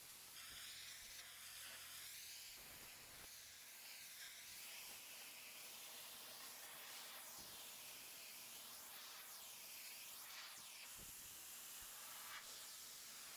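Pressure washer jet spraying stone patio slabs and steps: a steady high hiss of water striking the paving. Its tone sweeps up and down as the lance is moved across the stone.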